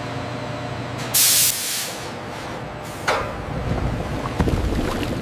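Hissing spray and a foaming chemical bath: a loud, short burst of hiss about a second in, a sharp knock about three seconds in, then a low churning, bubbling noise.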